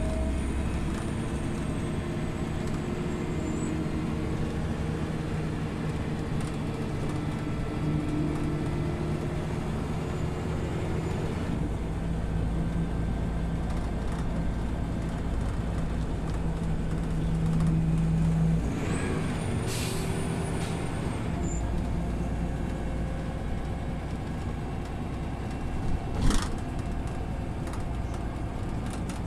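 Scania OmniLink CL94UB city bus running, with a steady engine drone that drops away a little past halfway. A short hiss of air follows, and a sharp click comes near the end.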